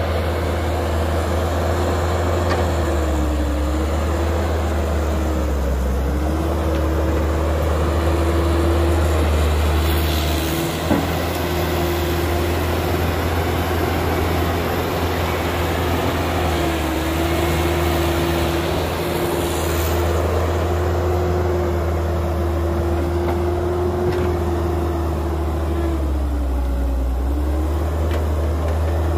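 Caterpillar hydraulic excavator's diesel engine running loud and steady close by while it digs and loads soil. Its pitch sags briefly twice as the engine takes load. A single sharp knock comes about eleven seconds in.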